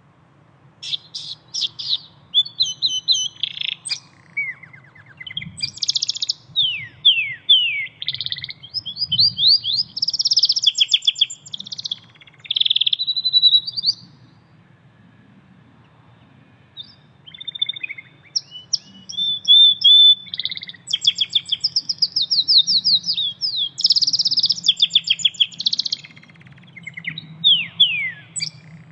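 Canary singing: long phrases of rapid trills and quick falling whistles, breaking off for about three seconds midway before starting again.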